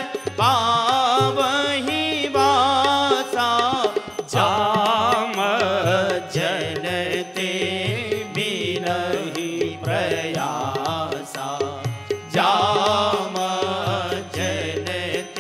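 Devotional singing of a verse in chant style with musical accompaniment: the voice slides and ornaments its notes in phrases of two to four seconds, over a steady low accompaniment.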